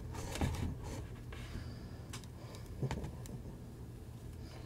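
Soft rustling and scratching as a long-haired cat is handled on a person's shoulder, over a steady low hum, with two brief low voice sounds.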